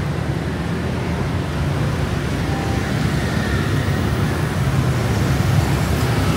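Steady city street traffic: a continuous low rumble of passing motor vehicles, with no single event standing out.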